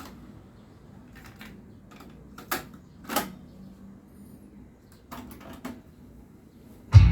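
Yamaha KX-390 cassette deck being operated: a series of mechanical clicks and clunks from its buttons and tape transport, the loudest about two and three seconds in. Just before the end, playback starts abruptly with loud guitar rock music.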